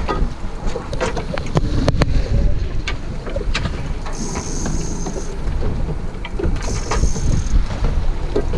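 90 hp outboard motor running on a small open fishing boat, with wind buffeting the microphone and scattered knocks. Twice, at about four and six and a half seconds in, a high buzz lasts about a second.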